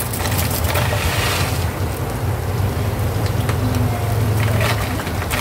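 Steady low rumble of a gas stove burner under a pot of rice, with a few faint light ticks on top.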